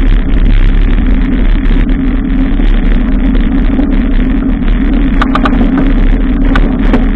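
Loud, steady riding noise from a bicycle ride in city traffic: wind on the microphone and road rumble, with a few short clicks about five seconds in.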